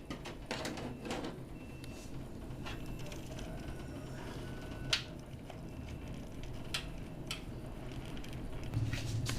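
A handful of short sharp clicks, scattered a second or more apart, over a low steady hum.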